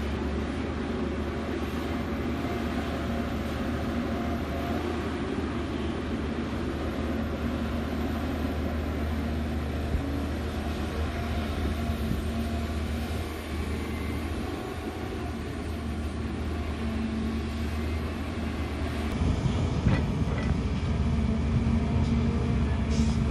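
Volvo EC290B LC crawler excavator's diesel engine running steadily under working load as it digs and swings soil, a continuous low hum that grows louder about two thirds of the way through.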